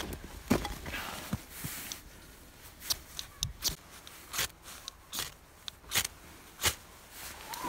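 A hand-held fire-lighting tool worked again and again over fire-starter sticks in a steel fire pit, making a series of sharp, irregular clicks or strikes, with softer handling noises before them.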